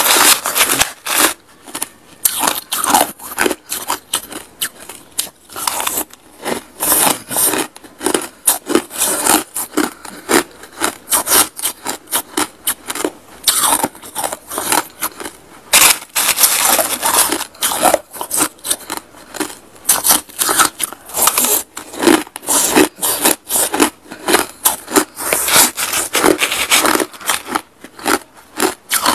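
Crushed ice being crunched and chewed in the mouth, a dense, irregular run of crisp crackles, mixed with a metal spoon scraping through the ice in a clear plastic tub.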